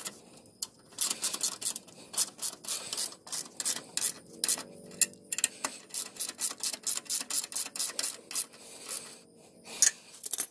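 Ratchet wrench on a socket extension clicking as it turns the nuts on the rear motor mount bracket, in a long run of quick clicks, several a second.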